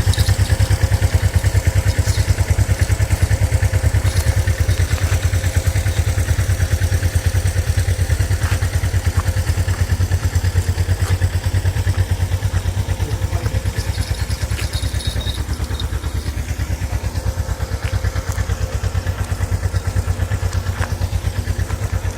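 Hyosung-Suzuki GSX250E motorcycle's air-cooled parallel-twin engine running steadily at low revs, an even low pulsing that eases off slightly toward the end.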